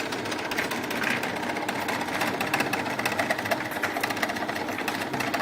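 DC shunt motor on a lab trainer running at steady speed, an even, fast mechanical whir.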